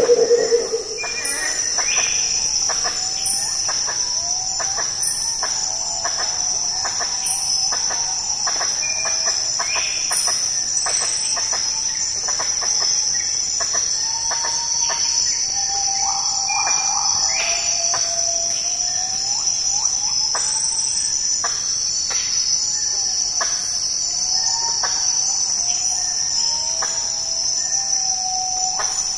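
Tropical rainforest ambience: a steady high-pitched insect drone, with short arching bird calls repeating every second or so.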